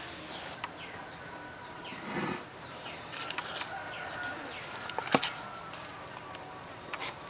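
Background birds chirping with short falling calls, while a cleaver cuts through boiled pork heart and windpipe on a wooden board, giving a few light knife clicks and one sharp knock about five seconds in. A short low muffled sound comes about two seconds in.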